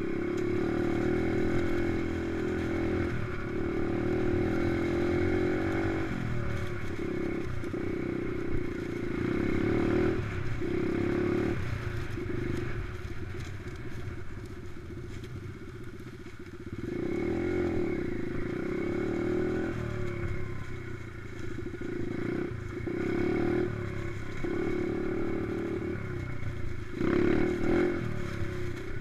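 Dirt bike engine running under a changing throttle, revving up and easing off repeatedly. It settles lower and quieter for a few seconds past the middle, then revs hard again near the end.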